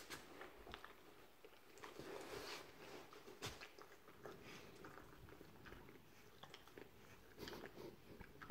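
Faint chewing and mouthing sounds from the kitten and the Great Danes at play, with scattered small wet clicks and rustles.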